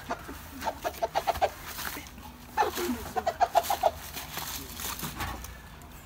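A chicken held in someone's arms clucking in two quick runs of short calls, one about a second in and another around three seconds in.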